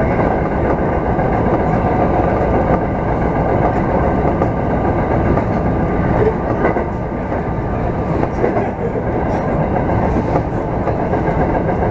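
Osaka Municipal Subway train running steadily along the track, heard from inside the front car: a constant rumble of wheels on rail with a faint steady whine above it.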